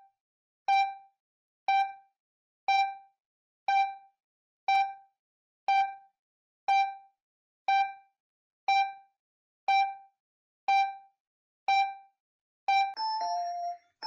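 Sound effect: a short bell-like electronic ping once a second, about a dozen times. Near the end a falling two-note chime starts repeating.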